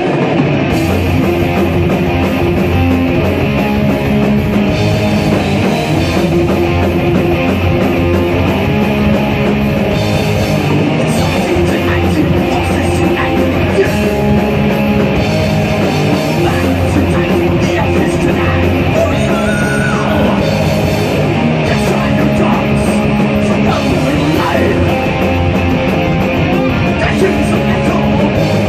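Rock band playing live: electric guitars and a drum kit together, loud and steady.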